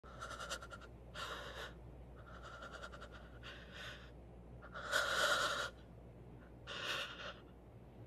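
A person's heavy breathing: about seven drawn-out breaths in and out with short pauses between them, the longest and loudest about five seconds in.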